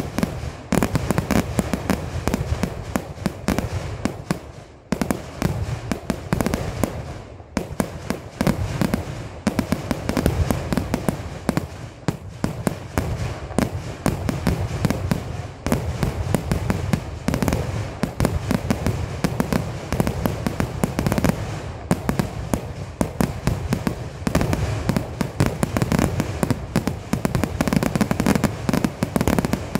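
Kerala temple-festival fireworks (vedikettu): a dense, continuous barrage of explosions going off many times a second, with brief lulls about five and seven and a half seconds in.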